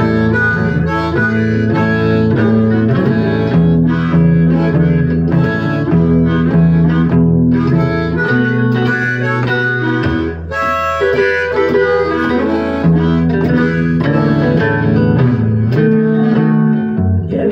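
Blues harmonica playing a sustained, bending solo line, cupped against a vocal microphone and amplified, over guitar accompaniment.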